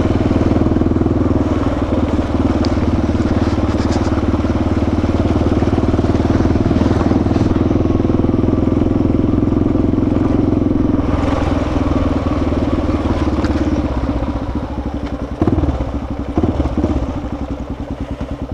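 Motorcycle engine running steadily while riding. Near the end the throttle eases off and the engine note drops and turns choppier and quieter.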